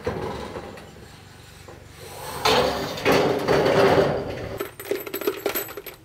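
Wood scraping and rubbing, loudest in a long scrape in the middle, followed by a quick run of light clicks and clinks with a faint metallic ring.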